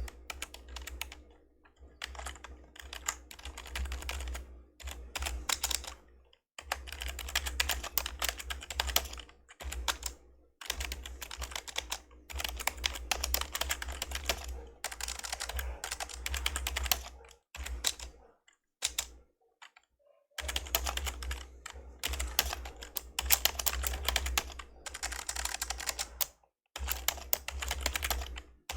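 Fast typing on an old membrane computer keyboard: bursts of rapid keystrokes broken by short pauses, with a longer pause of about two seconds a little past the middle.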